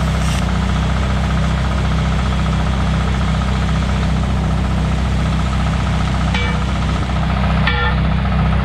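Engine-driven welder idling steadily. About six seconds in come two ringing metallic clanks, a little over a second apart, as the steel truck wheels are handled and knock together.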